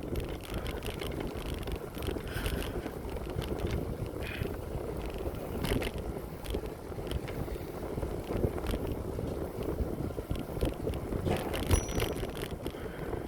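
Bicycle riding: steady wind rush on the microphone and rolling tyre noise, with scattered light clicks and rattles from the bike.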